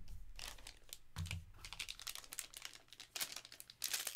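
Light clicks and taps of cards and plastic holders being handled on a table. Near the end there is a denser crinkling as a black foil wrapper is picked up.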